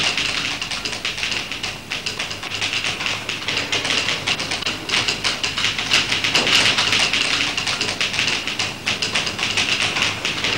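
Manual typewriters in an office, many keystrikes overlapping in a fast, continuous clatter.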